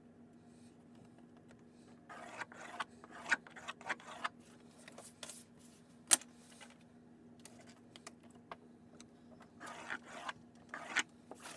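Pencil scratching along a plastic ruler on paper as lines are drawn, in several short strokes, with a sharp click about six seconds in.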